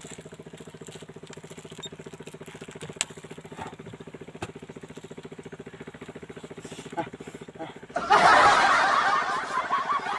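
A small engine runs steadily with an even, fast beat. About eight seconds in, a loud rushing noise starts and slowly fades.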